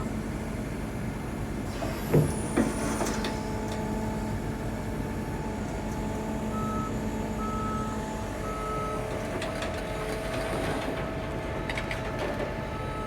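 Heavy diesel machinery running steadily, with a motion alarm beeping at an even pace from about halfway through and a sharp metallic knock about two seconds in.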